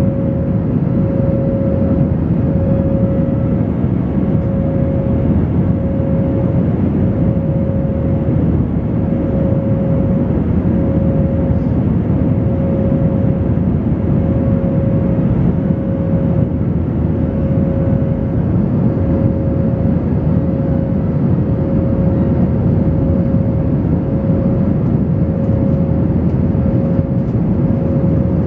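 Steady cabin noise of an Airbus A320 in flight: the drone of the jet engines and rushing airflow heard from a window seat. A humming tone rides on it and pulses gently about once a second.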